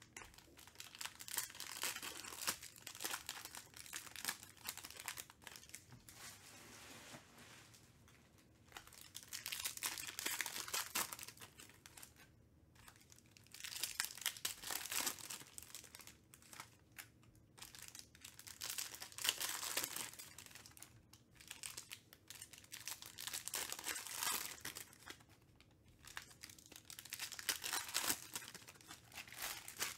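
Foil trading-card pack wrappers crinkling and tearing as packs are ripped open one after another, in bouts of crackle every few seconds.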